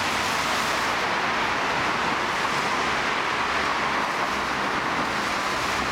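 Steady rushing noise of a road bicycle riding along at speed: tyre and air noise, without a break or change.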